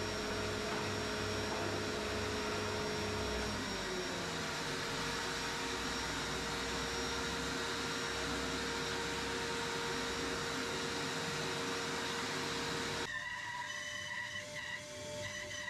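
Jointer running and planing a long jarrah board fed across its cutterhead: a steady machine noise. About thirteen seconds in it gives way abruptly to a quieter bandsaw.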